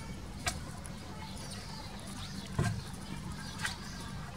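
A few irregular knocks on wooden boards as a wooden flower-bed frame is put together: a sharp tap about half a second in, a louder knock with a low thud about two and a half seconds in, and a faint tap near the end.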